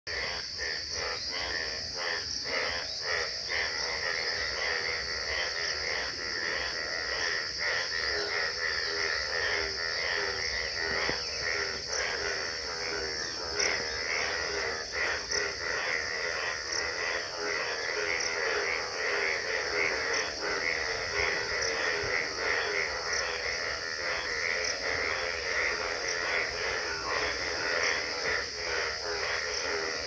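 Chorus of many frogs calling at once, a dense overlapping 'trr trr' of rapid pulsed trills, over a steady high shrill.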